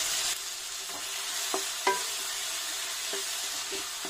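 Onion and tomato masala sizzling in oil in a nonstick pan as a wooden spatula stirs it, the tomatoes half-softened. The spatula makes about four light knocks against the pan.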